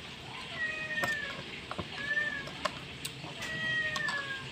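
A cat meowing over and over: several drawn-out meows that each fall slightly in pitch. Short crisp crunches of raw carrot being chewed come in between.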